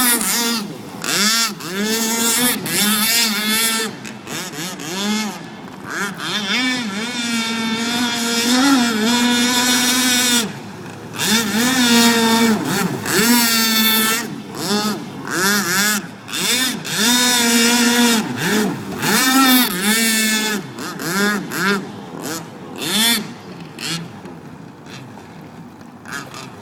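Pro Boat Blackjack RC boat's brushless electric motor whining, its pitch climbing and falling again and again as the throttle is worked, with spells of hiss across it. It grows quieter in the last few seconds.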